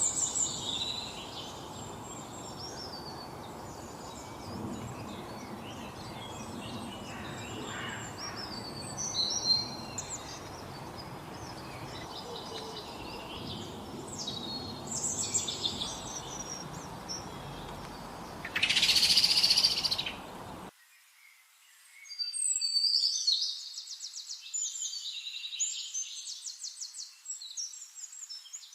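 Several wild songbirds chirping and singing in short phrases over a steady background hiss. A little before two-thirds through, a loud harsh buzzing call lasts about two seconds; right after it the low background drops away abruptly and rapid trilling songs continue.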